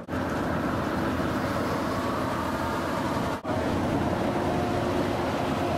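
Steady engine and road noise of a vehicle driving at motorway speed, heard from inside the cab. It cuts out for an instant once, about three and a half seconds in.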